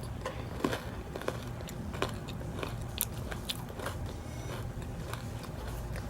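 Close-miked biting and chewing of an ice cream cone, with scattered sharp crunches, over a low steady hum.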